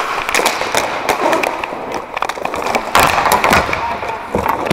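Roller hockey play on a plastic tile court: skate wheels rolling and rattling over the tiles, with sharp clacks of sticks and puck and a loud clatter about three seconds in.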